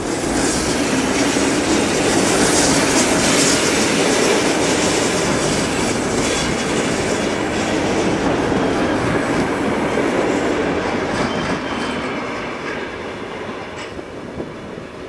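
Red-and-white VR commuter electric train running past on the near track. It is loud at first and fades over the last few seconds as the train draws away.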